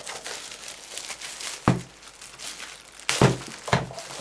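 Plastic cover crinkling as it is pulled off a power strip tower, with three sharp knocks: one about a second and a half in and two louder ones close together near the end.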